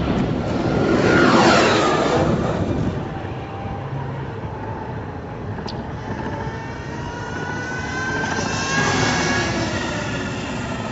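Electric racing motorcycle passing at speed. Its motor gives a high whine that falls in pitch as it goes by about a second in, and a second whine builds near the end, with no engine exhaust note.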